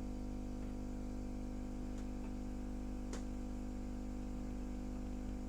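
Steady electrical hum from the repair bench, with a few faint light clicks about two and three seconds in.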